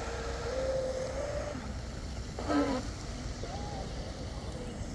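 Pro Boat Blackjack 24 brushless RC catamaran running across the pond, its motor a thin distant whine that rises slightly and then drops away about a second and a half in. Wind on the microphone throughout, with a brief pitched call or voice about halfway.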